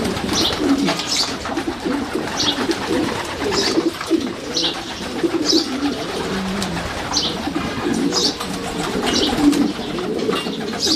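A flock of racing pigeons cooing continuously, with short high chirps about once a second over the cooing.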